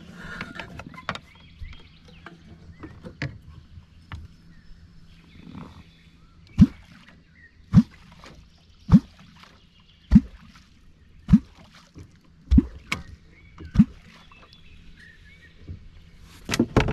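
A catfish clonk (kwok) chopped into the water seven times, about once every 1.2 seconds. Each stroke is a short deep gulping plop that rises in pitch, the call used to draw catfish up to the bait.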